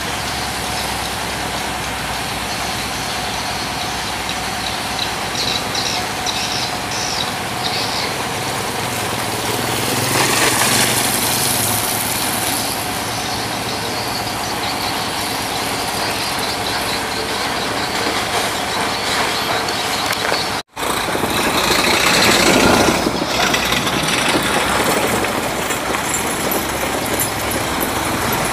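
Heavy logging trucks loaded with timber running along a dirt road, their diesel engines and loads making a steady rumble. A vehicle passes louder about a third of the way in. After a brief dropout, a truck's noise swells again about two-thirds of the way through.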